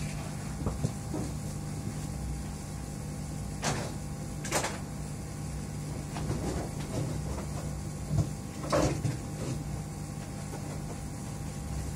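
Handling noise from searching for a replacement part: scattered rustles with a few sharp knocks about four and nine seconds in, over a steady low hum.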